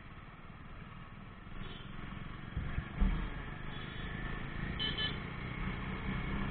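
Jawa 42 motorcycle running on the road, with low engine rumble and road noise. It grows louder with a sharp knock about three seconds in, and a short high beep comes near five seconds.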